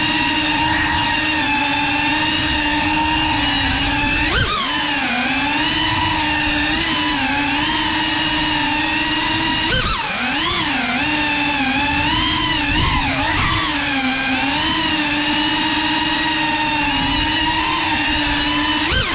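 GEPRC CineLog35 cinewhoop's brushless motors and ducted propellers whining steadily in flight, the pitch swooping down and back up with throttle changes about four seconds in, around ten seconds in, and again near the end.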